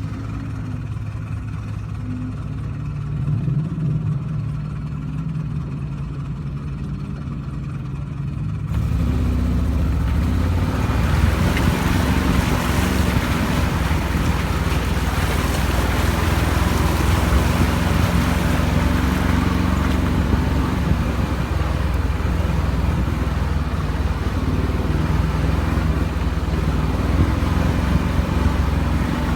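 Off-road vehicle's engine running with a steady low hum. About nine seconds in it gets louder, and a strong rushing noise comes in on top.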